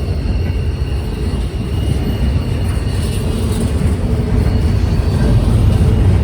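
Train rolling past, a steady low rumble with faint, thin high squeals from the wheels, growing slightly louder toward the end.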